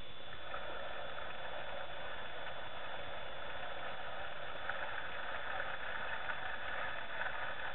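Steady, even hiss with no thunder rumble or other distinct event.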